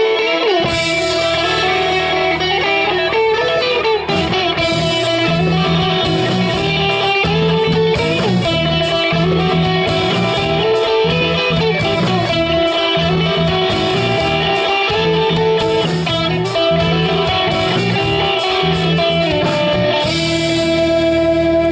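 Rock band playing live: electric guitars over bass guitar and drums.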